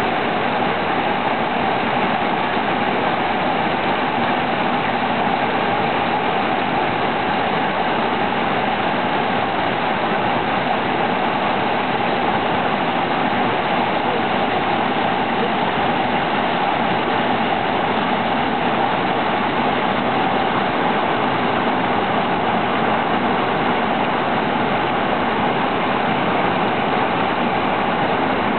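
Whitewater river rapids rushing over boulders: a loud, steady rush of water.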